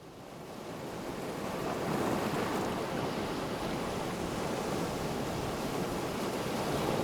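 A wash of ocean surf noise fading in from silence over about two seconds, then holding steady, as the ambient intro to an electronic music mix.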